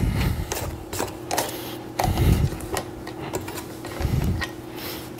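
Spatula scraping thick cookie dough off a stand mixer's flat beater, with low knocks about every two seconds and small clicks against the beater and the stainless steel bowl, over a faint steady hum.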